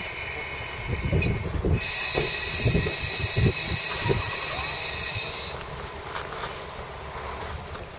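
JR Hokkaido KiHa 40 diesel railcar giving a loud, high-pitched metallic squeal that starts about two seconds in and cuts off suddenly after about three and a half seconds, over the low rumble of its diesel engine.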